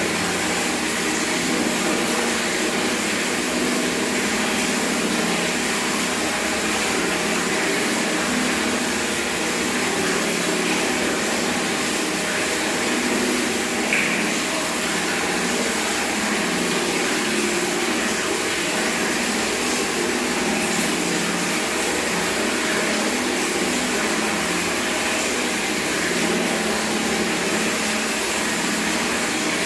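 Tap water running steadily into a bucket, an even splashing with a faint resonant ring from the filling bucket.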